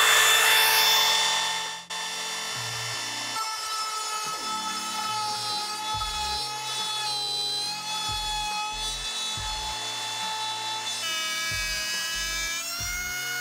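Milwaukee cordless compact router with a straight bit running at full speed with a high whine, routing a slot in the flat back of a scrap piece of crown moulding. About two seconds in the sound drops suddenly, and background music with a stepping bass line plays over a quieter high whine, whose pitch dips near the end.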